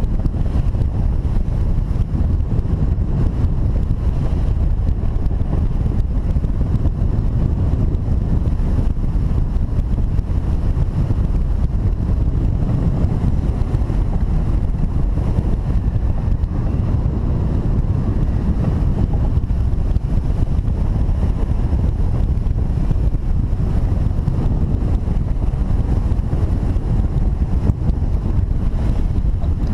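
Steady wind rumbling over the microphone, an even low rush with no breaks.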